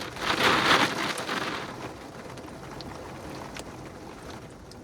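Heavy thunderstorm rain in strong wind: a loud surge of wind-driven noise in the first second and a half, then a steady rain hiss.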